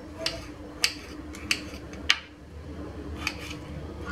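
Kitchen knife dicing tomato on a cutting board: sharp taps of the blade hitting the board, about one every half second, with a longer gap near the end.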